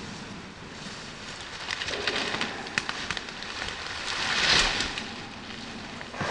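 Rustling and crackling in grass and undergrowth with scattered sharp clicks, as a sawn log round is handled and lifted from the forest floor. The noise is loudest a little past the middle.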